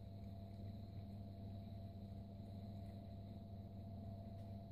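Steady low hum with a faint high steady tone above it, unchanging throughout; no distinct chewing or other events stand out.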